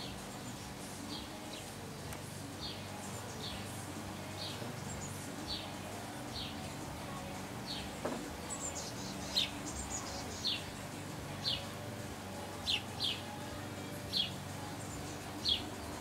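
A small songbird giving short, high calls over and over, each a quick downward slur, about one a second. The calls grow louder from about halfway through. A faint steady low hum lies underneath.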